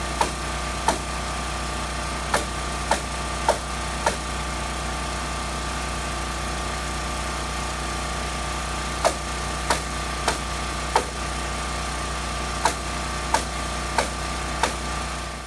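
A small engine running steadily, with a series of sharp cracks over it: six in quick succession over the first four seconds, then eight more from about nine seconds in, roughly half a second to a second apart.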